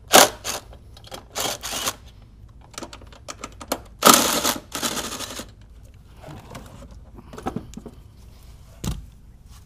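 Cordless 18V impact driver running in short rattling bursts, backing out the 10 mm bolts of a car battery's hold-down and terminals. A single dull thump near the end.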